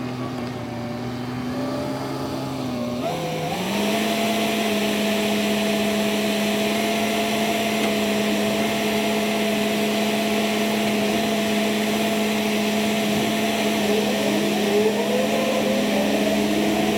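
John Deere 317 skid steer's diesel engine running under load. About three seconds in its pitch dips, then settles steady as a broad hiss joins it. A few faint rising whines come near the end.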